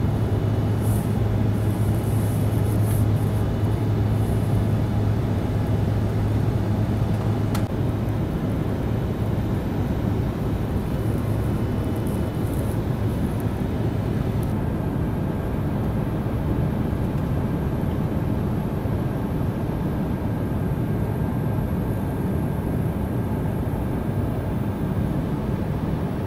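Steady running noise of a moving vehicle, with a low hum that weakens about eight seconds in.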